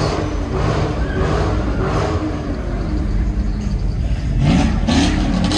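Several car engines running in slow street traffic, with one engine revving up, its pitch rising, a little over four seconds in.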